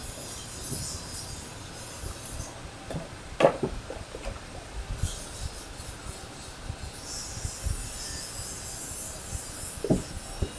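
Outdoor yard noise with wind buffeting the microphone and a high hiss that comes and goes. There are a few knocks of wooden timbers being handled, the loudest about three and a half seconds in and another near the end.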